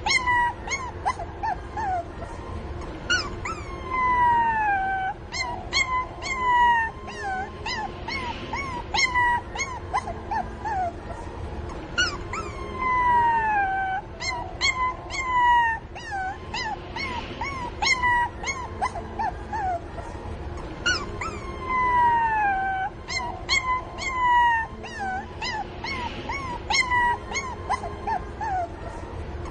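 Several young puppies crying at once: high-pitched squeals and yelps overlap with longer whines that slide down in pitch over about a second. These are the distress cries of puppies calling for their mother.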